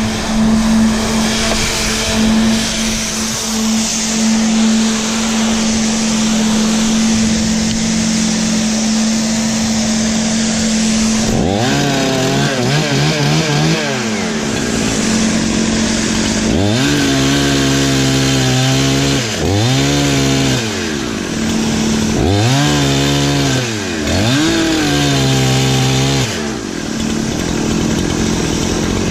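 Perla Barb 84cc two-stroke chainsaw cutting firewood: the engine holds one steady high note for about eleven seconds, then its speed dips and climbs back up several times.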